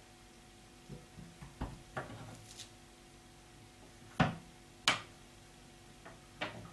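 Half a dozen short, sharp clicks and knocks of a hand working at a window's fittings, the two loudest about four and five seconds in, over a faint steady room hum.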